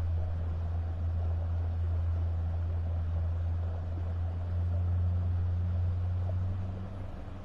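Boat's engine running at slow cruising speed, a steady low drone that eases off slightly near the end.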